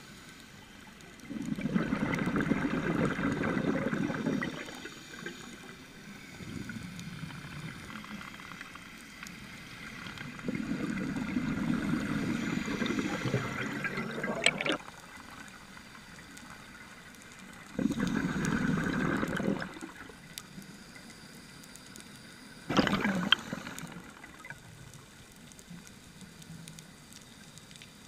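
Scuba diver breathing through a regulator underwater: four bursts of exhaled bubbles rushing and gurgling, the longest about four seconds and the last one short, a few seconds apart, with quieter breathing between them.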